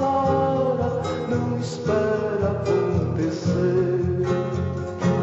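Background music: a strummed acoustic guitar playing a song's accompaniment between sung lines.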